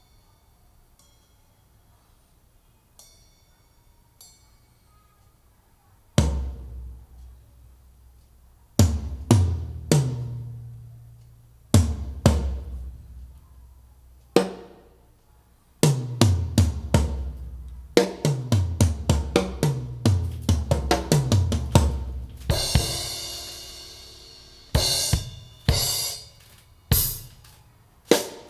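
A drum-kit recording played through a woofer whose foam surround has been patched with layers of tissue paper. After about six seconds of near quiet, single kick and tom hits with long decays give way to a quick run of hits and a cymbal crash near the end. The owner suspects the repaired driver still has problems.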